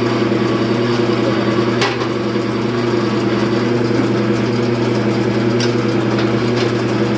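Wood lathe running with a steady motor hum while a scraper cuts the spinning wood, giving a constant hiss; a single sharp tick about two seconds in.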